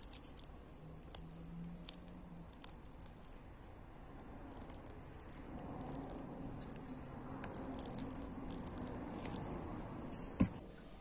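A hand patting and smoothing glazed, wet bread dough: soft sticky squishing with many small crackling ticks as the palm and fingertips lift off the dough surface. One sharp knock near the end.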